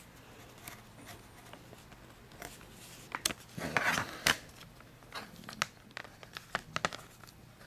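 Metal clicks and scraping from a SOG Power Duo multi-tool being worked by hand as its stiff arc actuator is pressed hard, with a louder scrape about four seconds in.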